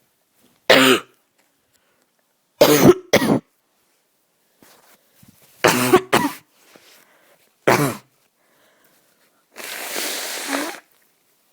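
A sick person coughing hard in four bouts: a single cough, a run of three, a pair, then one more. Near the end comes a longer breathy rush of air lasting about a second.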